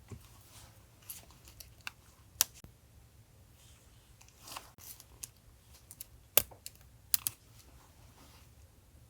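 Scattered sharp taps and clicks of paper and stationery being handled for a journal collage, the loudest about two and a half and six and a half seconds in, with a soft paper rustle in between. A refrigerator's low steady hum runs underneath.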